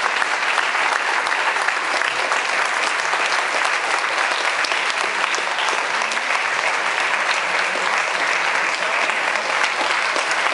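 Theatre audience applauding and cheering steadily as a cast member is called up to the stage.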